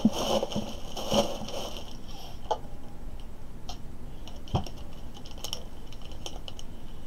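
Plastic air-cushion packaging rustling and crinkling in the hands for the first second or so, then scattered small clicks and taps as it is handled, with one sharper tap a little past halfway.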